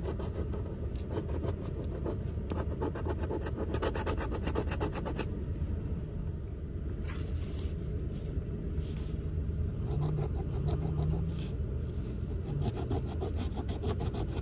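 A coin scratching the latex coating off a $20 Million Supreme lottery scratch-off ticket in rapid rasping strokes: a long run over the first five seconds, a pause, then shorter runs near the end. A steady low rumble runs underneath.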